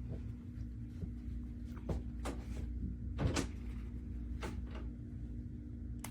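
A handful of sharp knocks and clicks, the loudest about three seconds in, over a steady low hum.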